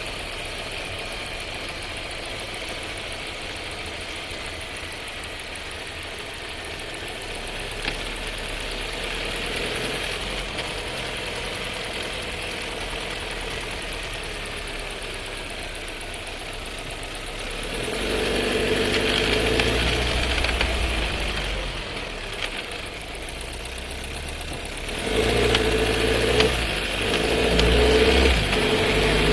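Cabin sound of a Skoda Scala's 1.5 TSI four-cylinder engine and DQ200 seven-speed dry-clutch DSG while driving: a steady running sound that grows louder and rougher, with a low drone, about eighteen seconds in and again near the end. The owner complains of rattling and vibration from this drivetrain.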